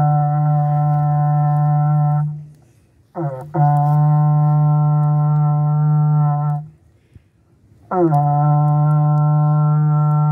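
Berrante, the Brazilian ox-horn cattle-calling horn, blown by a beginner in three long, steady notes, each starting with a short rising scoop and separated by brief pauses.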